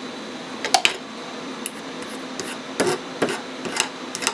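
Short metal-on-metal scrapes and clicks at irregular intervals, about half a dozen, from burrs being taken off a small metal ferrule.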